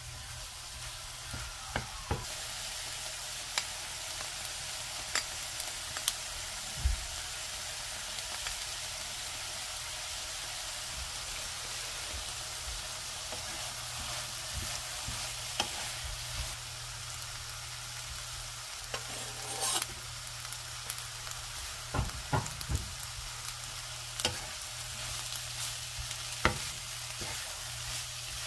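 Sliced shiitake mushrooms, onion and carrot sizzling steadily in a nonstick frying pan as a wooden spatula stirs and scrapes them, with scattered sharp taps of the spatula against the pan.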